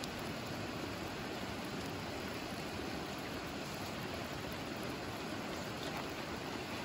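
Steady rushing of a river flowing over its stony bed.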